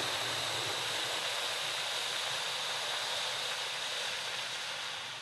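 A man's long, forceful exhalation through the mouth: a steady hiss of breath that holds level and starts to fade near the end, as the lungs are emptied in a deep diaphragmatic breathing exercise.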